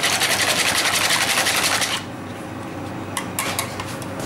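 Wire balloon whisk beating eggs in a plastic mixing bowl: rapid, even strokes several times a second that stop abruptly about two seconds in. A few light clicks follow.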